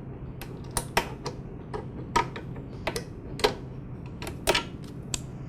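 Metal hose clamp on a lawn mower's rubber fuel line being worked loose at the carburetor: a series of about a dozen sharp, irregular clicks.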